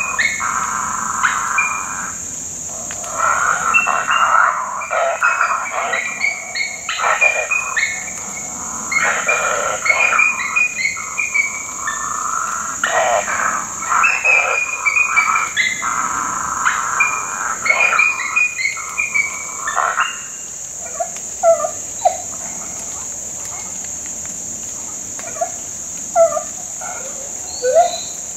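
Steady high insect chorus, with an electronic predator caller playing calls over it: a dense run of pitched cries for about the first twenty seconds, then a few short squeaks spaced a second or more apart.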